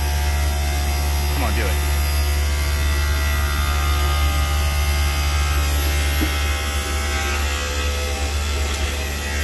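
Failing inverter compressor of a Daikin Rebel VRV package unit running with a loud, steady hum made of many tones, with a few brief pitch sweeps, the clearest about a second and a half in. The noise is a sign that something is mechanically wrong inside the compressor.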